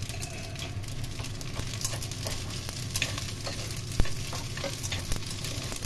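Rice vermicelli with shrimp and squid frying gently in a speckled nonstick pan while chopsticks stir it, tapping and scraping against the pan, with one sharp tap about four seconds in.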